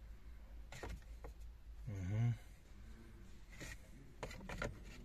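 Plastic centre-console trim pieces of a Toyota Land Cruiser 200 giving a few light clicks and knocks as they are handled and test-fitted. A short hummed voice sound comes about two seconds in.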